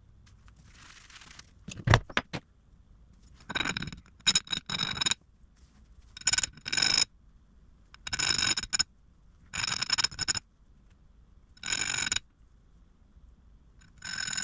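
Repeated metal scraping strokes as small machined clamp pieces are cleaned up, each stroke lasting about half a second to a second and ringing with the same metallic tones. There is a short knock about two seconds in.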